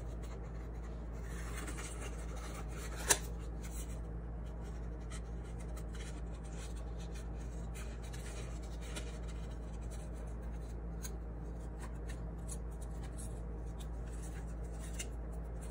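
Scissors snipping through crayon-coloured paper in faint short cuts, with one sharp click about three seconds in, over a steady low hum.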